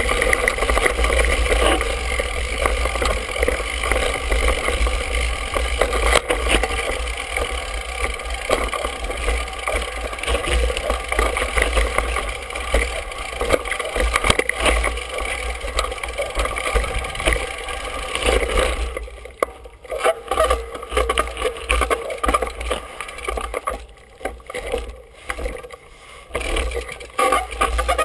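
Mountain bike ridden down a rough dirt singletrack, heard from a handlebar-mounted GoPro: steady wind rumble on the microphone with constant rattling and knocks from the bike over the ground. Shortly after two-thirds of the way in the noise drops and turns choppy, with short lulls.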